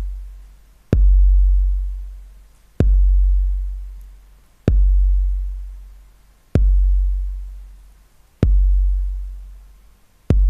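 Roland TR-808 kick drum sample repeating six times, about once every two seconds: each hit a sharp click followed by a deep, fading boom. It plays through a hard 10:1 compressor whose release is being turned up slowly, keeping the tail held down so the click at the start comes through more strongly.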